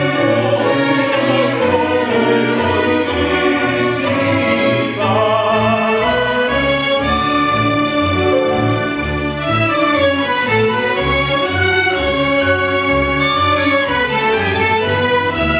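A string orchestra of violins, cellos and double bass playing live, with sustained string lines over a bass line that moves in repeated notes.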